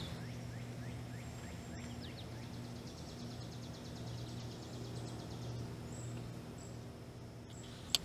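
Outdoor garden ambience: a steady low hum, a couple of faint bird chirps in the first two seconds, and a high, rapid, evenly pulsing trill from about two to six seconds in.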